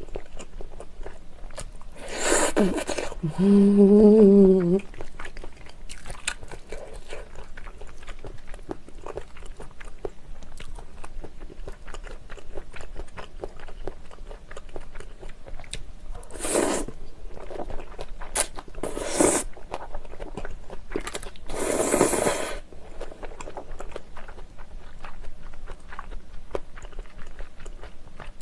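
Close-miked eating of jjajangmyeon, black bean sauce noodles: steady wet chewing with loud slurps of noodles about two seconds in and several more between about 16 and 22 seconds in. Right after the first slurp comes a short hummed "mmm".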